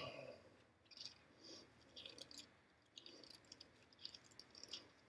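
Faint rustling and flicking of paper as prayer book pages are turned: a scattered string of short, soft swishes.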